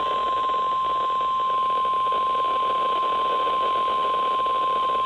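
NOAA Weather Radio 1050 Hz Warning Alarm Tone: one steady, loud, high tone over radio hiss. It signals that a warning message is about to follow.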